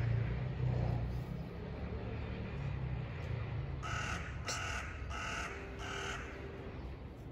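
A bird calling four times in quick succession, a little under a second apart, starting about four seconds in. Under it is a low rumble that is loudest in the first second and then fades.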